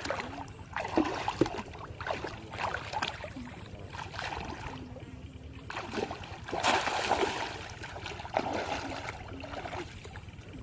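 Shallow water splashing and sloshing in irregular bursts, loudest about a second in and again about two-thirds of the way through.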